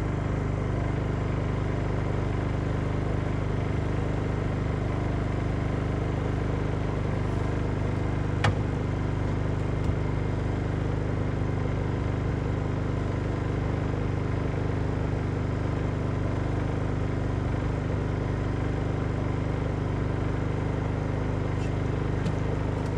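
Boat motor idling steadily, an even low engine drone, with a sharp click about eight seconds in.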